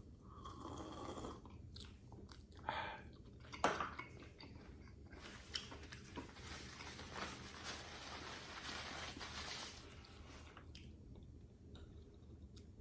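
A person chewing and biting into food, with some crunching.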